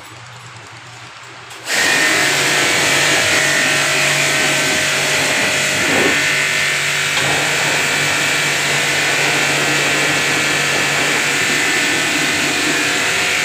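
Electric pressure washer switching on after about two seconds and running steadily: a motor hum under the hiss of the water jet spraying onto a motorcycle frame.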